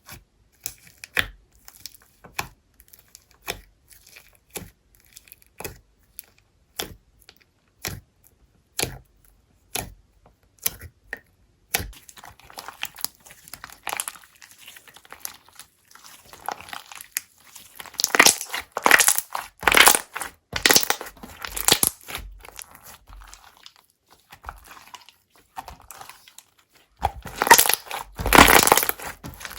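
Slime being played with by hand: for the first dozen seconds a string of separate sharp pops and clicks, then a denser crackling, squishing texture as it is worked, growing louder in surges near the end.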